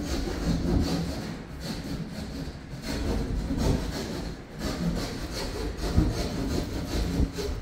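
Hand saw cutting through a ceiling panel in rough back-and-forth strokes, spaced unevenly, likely opening the hole for an exhaust fan.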